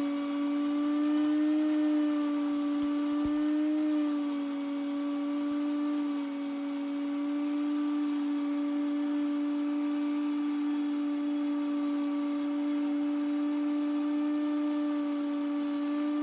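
EveryGrow electric grain mill grinder running at speed, grinding dry worm chow ingredients through a coarser mesh screen: a steady motor whine whose pitch wavers slightly, over the rushing noise of the material being milled.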